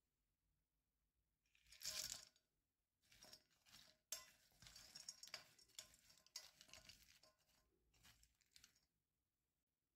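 Nuts and dried fruit rattling and clinking against the sides of a glass bowl. First comes a short rattle about two seconds in, then several seconds of faint clinking as the mix is stirred with a wooden spoon.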